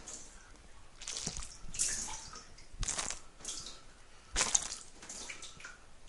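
Squelchy shower head spurting water in irregular gushes, with short squeaky gurgles between them; the loudest gush comes a little past the middle.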